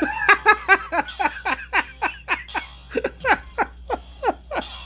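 A man laughing hard: a fast string of short 'ha' bursts, about four or five a second, each dropping in pitch, fading toward the end.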